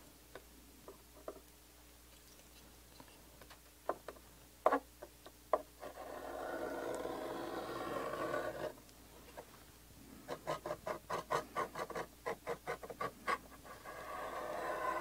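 Steel point of a beam compass scratching a metal plate as lines and arcs are scribed: a few sharp clicks as the points are set down, then a long scraping stroke, a run of quick short scratches about three or four a second, and another scraping stroke near the end.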